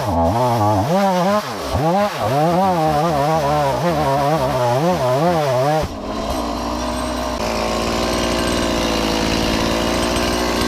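Chainsaw cutting through a tree limb, its engine pitch rising and falling rapidly as it bogs and recovers in the cut. About six seconds in it abruptly settles to a steadier, lower, slightly quieter running.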